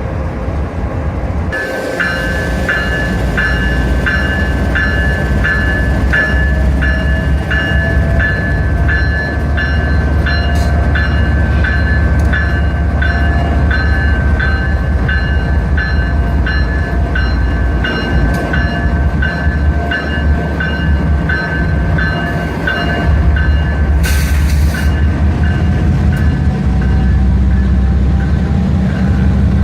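Railroad bell ringing steadily, about one and a half strokes a second, over the low rumble of a diesel locomotive; a short hiss about 24 seconds in, and the bell stops near the end.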